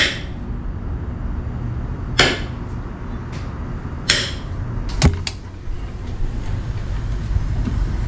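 A kitchen knife clicking against a ceramic plate a few times while salami is sliced, over a steady low background rumble.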